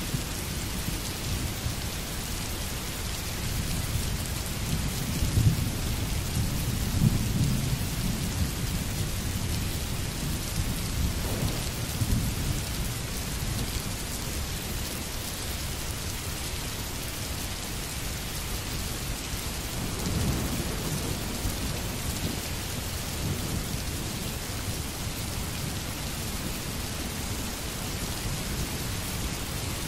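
Steady rain falling, with low rumbles of thunder swelling about five seconds in, again around twelve seconds and near twenty seconds.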